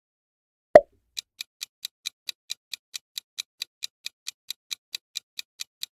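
Countdown timer sound effect ticking quickly and evenly, about four to five ticks a second, starting just after a single short, sharp sound about a second in.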